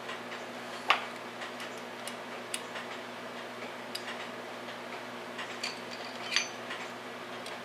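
Small irregular metallic clicks and taps of brass clock movement parts being handled and fitted onto a movement plate, over a faint steady hum; the sharpest clicks come about a second in and near the end.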